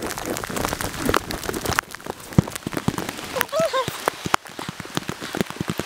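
Heavy rain pattering on the plastic bag wrapped around the camera: a dense, irregular run of sharp taps. About three and a half seconds in comes a short, high, wavering vocal sound.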